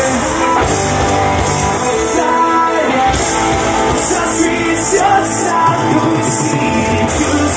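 Live rock band playing through a festival PA, with electric guitars and drums, heard loud and steady from within the audience.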